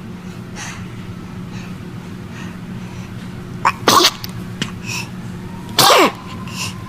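Baby sneezing twice, about two seconds apart, the second sneeze ending in a short falling voiced tail, over a steady low hum.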